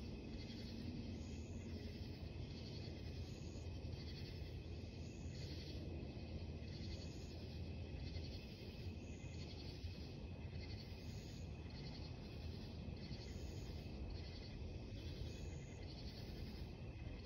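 Night insects calling in an even rhythm, a pulse about every two-thirds of a second, over a low steady hum.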